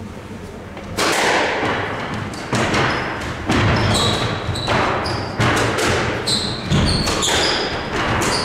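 Squash rally: the ball cracks sharply off rackets and the court walls at irregular intervals starting about a second in, each hit ringing in the enclosed court. From midway, short high squeaks of court shoes on the wooden floor come between the hits.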